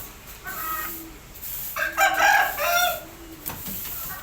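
Birds calling: short repeated calls, with one loud call about two seconds in that lasts about a second.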